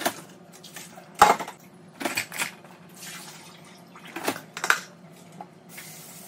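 Dishes clattering as plastic bowls, cups and glasses are set into a dishwasher's wire racks: a handful of sharp knocks, the loudest about a second in. Near the end comes a short hiss of water at the sink.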